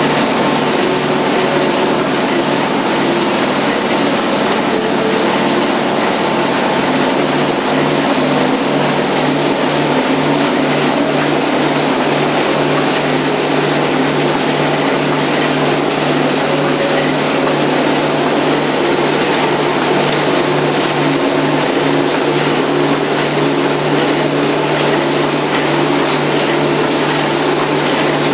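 A multi-electrode spot-welding machine making welded wire mesh in rolls, running continuously: a loud, steady low hum that pulses in a regular rhythm over constant machine noise.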